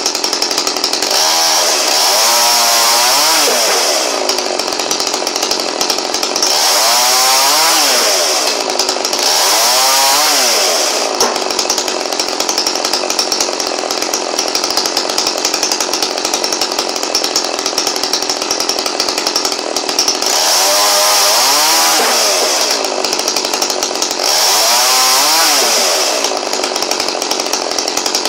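Two-stroke chainsaw, clamped in a wooden cutting frame with an automatic throttle, running steadily and revving up five times as olive branches are cut. With each cut its pitch rises and then falls.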